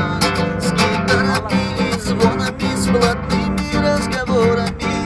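Nylon-string classical guitar strummed in a steady rhythm, chords ringing between the strokes.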